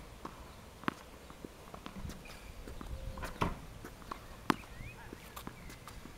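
Tennis balls from a ball machine landing and bouncing on a hard court: a few sharp knocks about a second or more apart, with footsteps on the court.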